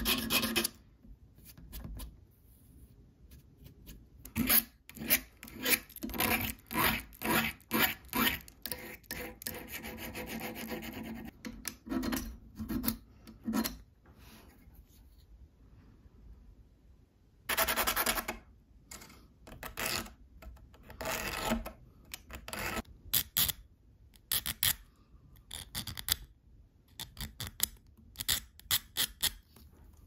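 A small hand file scraping the steel tool of a Victorinox Swiss Army knife in quick back-and-forth strokes, in two long runs with a pause of a few seconds between them.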